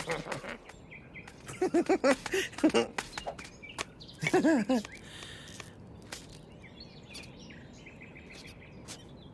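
A voice making short wordless vocal sounds in two bursts, a few bouncing notes and then a brief gliding one; faint chirping follows.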